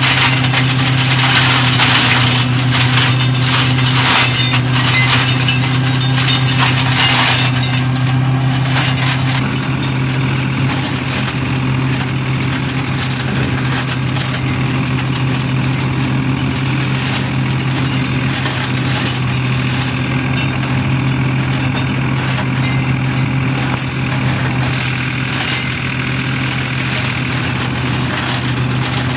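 New Holland TT50B tractor's diesel engine running steadily, driving a PTO flail mulcher that shreds pruned vine canes. For about the first nine seconds there is dense crackling and clatter as the canes are broken up. After that it is mainly the steady drone of engine and mulcher.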